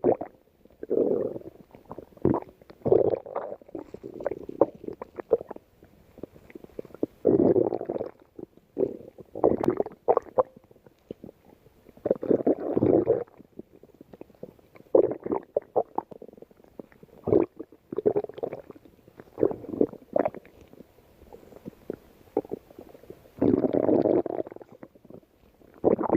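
Human stomach growling: irregular rumbles lasting from under a second to about two seconds, the longest about seven, twelve and twenty-four seconds in, with short pops and clicks between them.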